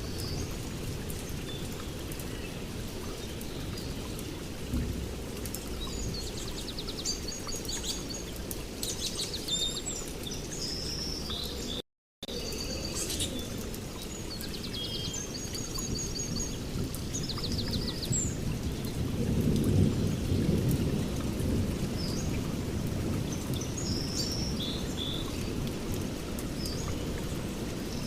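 Steady rain with small birds chirping and trilling in short bursts over it, and a low rumble of thunder swelling about two-thirds of the way through. The sound cuts out completely for a moment near the middle.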